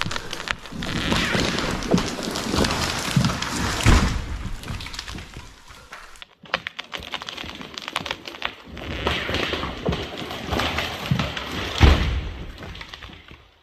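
A felled balsam fir crashing down: a rush of snapping and swishing branches with heavy thuds as the trunk and limbs hit the ground. This comes in two bouts, the main thud about four seconds in and another near the end.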